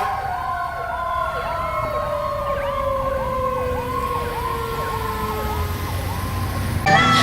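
Fire truck sirens: one long siren tone winding slowly down in pitch while an electronic siren yelps in quick repeated sweeps, about two and a half a second. Music starts near the end.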